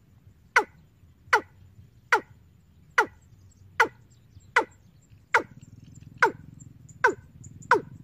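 A recorded 'ayam tembaga' lure call played through a horn loudspeaker from a bird-trapping amplifier: a sharp, quickly falling call repeated about every 0.8 s. A low electrical hum from the amplifier comes up about two-thirds of the way through.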